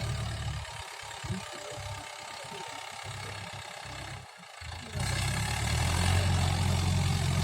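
Mahindra tractor's diesel engine running steadily while ploughing; it drops back and thins out for a few seconds, then comes back louder about five seconds in.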